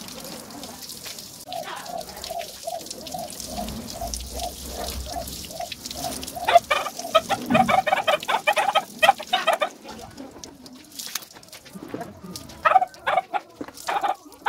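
A chicken clucking in a steady run of two or three clucks a second, then breaking into a louder, rapid cackle around the middle and again near the end. The spray of a garden hose hisses beneath it for the first part.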